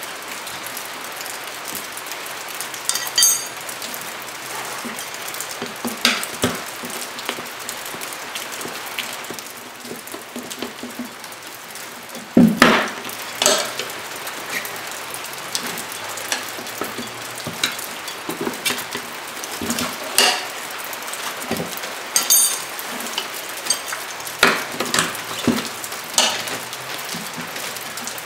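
Steel tire irons clinking and scraping against a spoked dirt-bike rim as the tire bead is levered off: scattered knocks and clicks, the loudest pair about twelve and a half seconds in. A steady hiss runs underneath.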